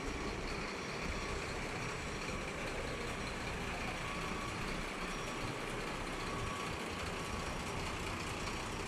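Fire service vehicles' engines running steadily at idle and low speed, an even rumble with no siren.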